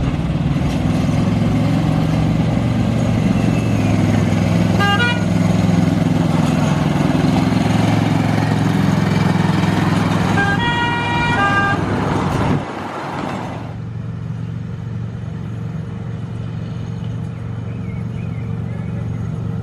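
7¼-inch gauge miniature railway locomotive running with a steady low drone from its motor. Its horn gives a short toot about 5 s in and a longer two-tone blast about 10 to 12 s in. After a sudden cut the drone carries on more quietly.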